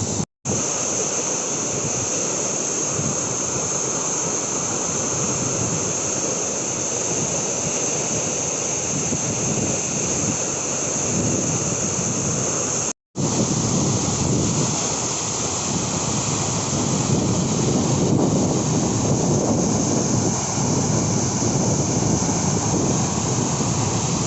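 Waterfall crashing down, a steady dense roar of falling water, broken off for an instant twice.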